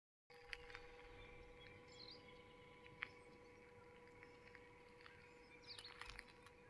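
Near silence: faint outdoor ambience with a few faint bird chirps and scattered light clicks over a faint steady hum.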